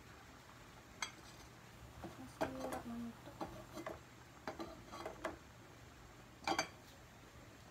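Scattered light clinks and knocks of kitchenware being handled, in several small clusters, with a couple of short ringing tones, over a faint steady low hum.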